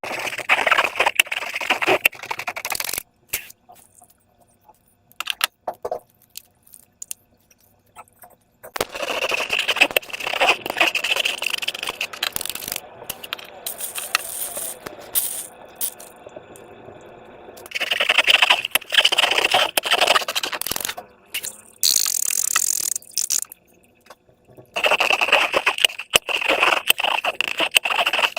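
Slime being worked by hand, with sticky, wet crackling and clicking in bursts of two or three seconds and quieter pauses between them.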